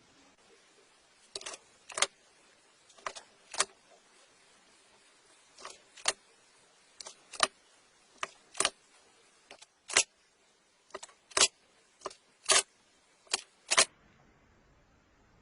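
A series of sharp clicks, about ten, mostly in pairs of a faint click followed closely by a louder one, roughly one pair every second or so; they stop about a second and a half before the end.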